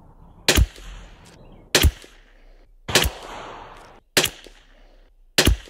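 Five shots from a Sako P94S .22 LR bolt-action rimfire rifle firing SK Standard Plus ammunition, a little over a second apart, each trailing off in a short echo.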